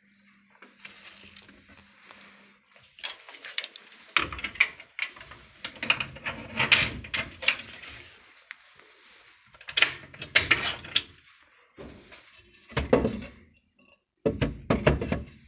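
Wooden boards and hay bedding in a wooden chinchilla cage being handled and moved, irregular scraping, rustling and knocking in several bursts.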